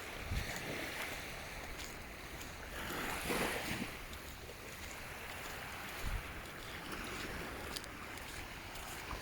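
Small sea waves washing in the shallows, one wash swelling about three seconds in, with a few brief low wind buffets on the microphone.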